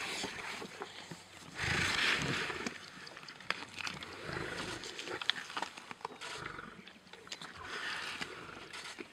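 Adult male lions growling as they feed on a warthog. The loudest growl comes about one and a half seconds in and lasts about a second, with weaker growls later and scattered short clicks.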